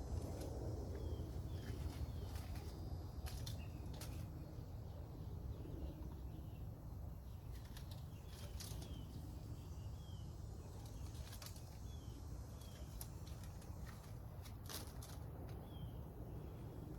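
Outdoor backyard ambience: a bird giving short, falling chirps every second or so over a steady low rumble, with a few sharp clicks or rustles.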